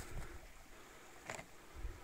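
Faint outdoor background with low rumbling thuds of handling on a handheld camera's microphone as it pans, and one sharp click a little past halfway.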